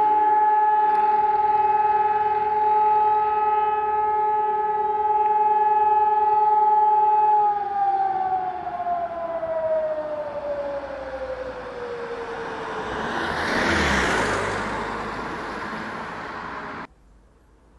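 Civil defence siren sounding a loud steady tone, then winding down with a slowly falling pitch from about halfway through. A rushing noise swells near the end, and the sound cuts off abruptly shortly before the end.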